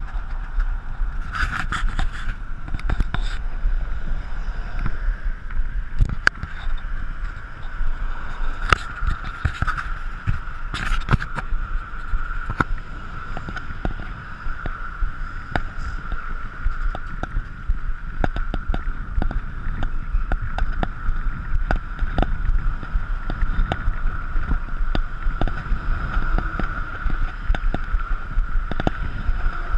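Bicycle rolling along a jointed concrete path, heard through a camera mounted on the handlebars: a steady whir with frequent sharp clicks and rattles as it jolts over the path, over a low rumble of wind on the microphone.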